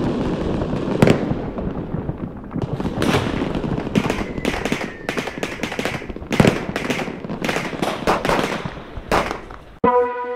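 Consumer fireworks battery firing: a string of shells bursting in sharp bangs, about a dozen, over continuous crackling.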